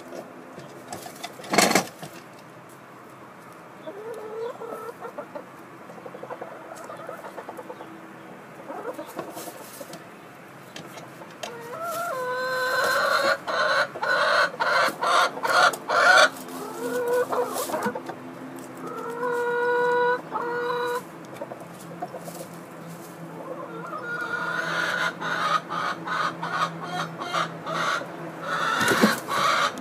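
Hens clucking in a coop, building from about halfway through into loud repeated calls with a few drawn-out notes, denser again near the end. A single sharp knock about two seconds in.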